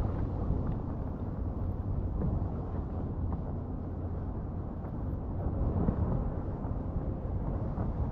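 Wind buffeting the camera microphone as a steady low rumble, with a few faint knocks from handling.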